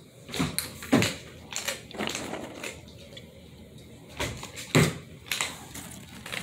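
A German Shepherd eating treats and hunting for them on a hardwood floor: a string of irregular knocks and crunches, loudest about a second in and again just before five seconds in.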